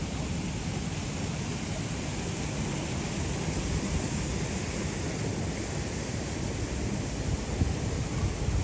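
Steady city street ambience: an even noisy wash with a low rumble, and a few louder low knocks near the end.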